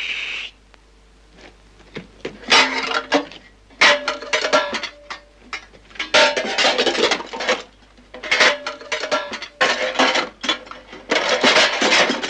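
A series of clattering crashes, about eight of them, starting some two seconds in, with metal or crockery ringing through some of them.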